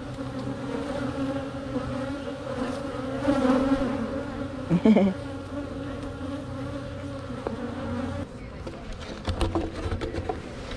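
Honey bees buzzing in a steady hum around an open hive, with a few short knocks. The hum weakens a little about eight seconds in.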